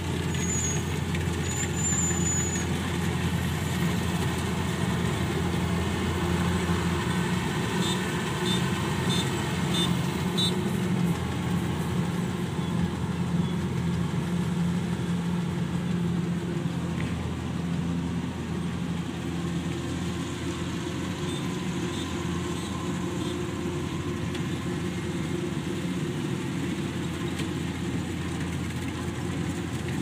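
Kubota DC-105 combine harvester's diesel engine running steadily while the machine cuts and threshes rice.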